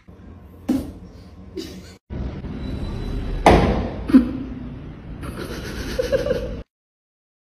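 A sudden bang about three and a half seconds in, over a steady background hiss, with a short duller knock just after it.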